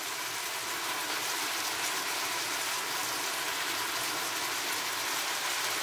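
Chopped vegetables and dry rice sizzling steadily in olive oil in a frying pan: an even, constant hiss.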